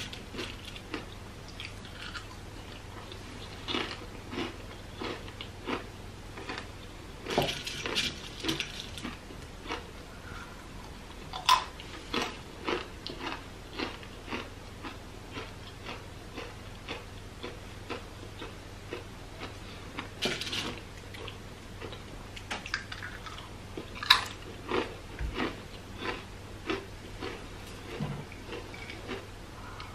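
Plantain chips being bitten and chewed: many short, crisp crunches at an irregular pace.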